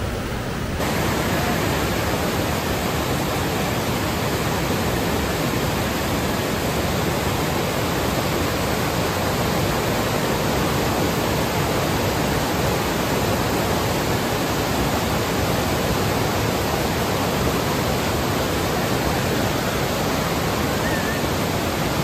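Vazhachal Falls: a steady roar of rushing, falling water, a little louder from about a second in.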